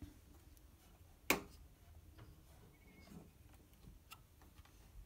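Low room hum with one sharp click about a second in, followed by a few faint scattered ticks.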